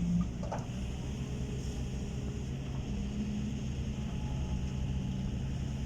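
Heavy diesel engine of construction machinery running steadily, a low even drone. There is a brief knock near the start.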